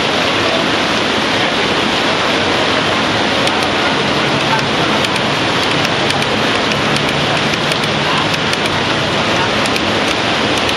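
Steady hiss of heavy rain, with scattered faint clicks from a few seconds in and a low hum joining about midway.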